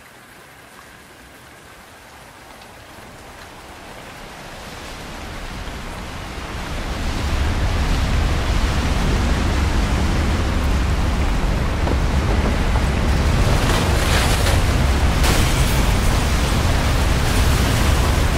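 Tornado soundscape of rushing wind: a noisy rush that swells from faint to loud over the first seven seconds or so, then holds steady with a deep rumble underneath and a few sharper hissing gusts in the last few seconds.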